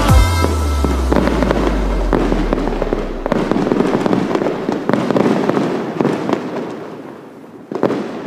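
Fireworks display: a deep boom at the start, then a dense run of crackling and popping bursts that dies away near the end, with a brief last flurry.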